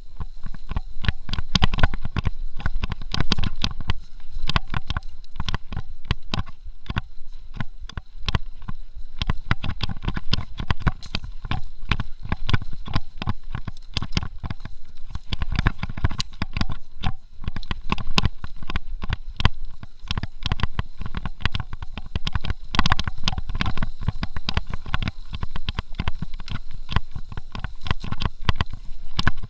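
Mountain bike ridden fast over a rough dirt trail: dense, irregular rattling and knocking from the bike and tyres over roots and rocks, with wind rumble on the rider-mounted camera's microphone.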